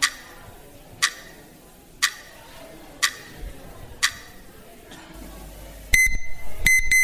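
Quiz timer ticking once a second while answer time runs. About six seconds in, a much louder electronic time-up alarm starts and keeps sounding in rapid pulsing beeps.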